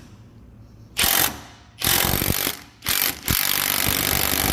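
High-torque impact wrench, rated 1070 ft-lb, hammering a bolt through a 24 mm swivel impact socket in reverse to back it out. It gives three short bursts starting about a second in, then runs continuously from about three seconds in.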